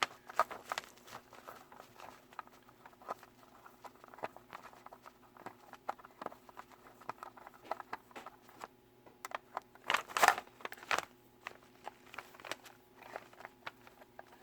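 Handling noise from the small homemade tester's case being opened: scattered clicks, taps and scrapes, with a louder clatter about ten seconds in.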